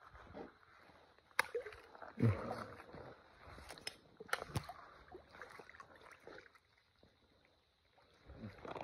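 Feet and hands splashing and sloshing in shallow muddy water while wading and groping for fish, with a few sharp clicks and a louder low thump about two seconds in.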